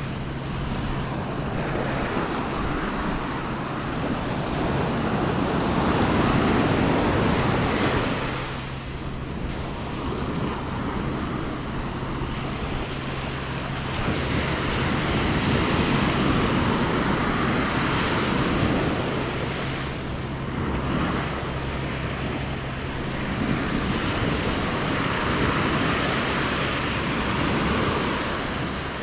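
Small ocean waves breaking and washing up the sand at the shoreline, the surf swelling and easing every several seconds.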